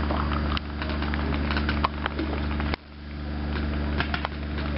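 Paintball markers firing in a paintball match: a scattered series of short sharp pops and cracks, thickest in the middle and near the end. A steady low hum runs underneath.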